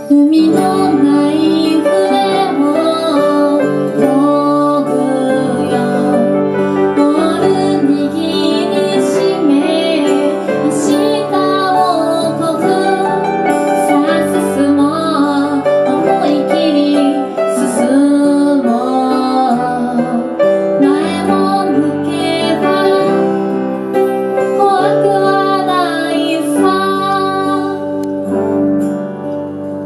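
A woman singing live, accompanied by acoustic guitar and piano.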